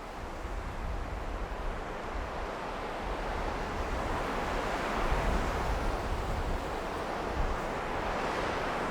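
Designed wind sound: a rough, rushing noise with a low rumble, swelling slowly louder, like wind scouring dry, gritty earth.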